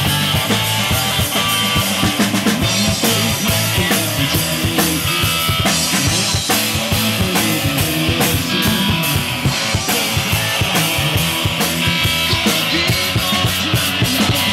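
Live rock band playing, a drum kit keeping a fast, steady beat under guitar.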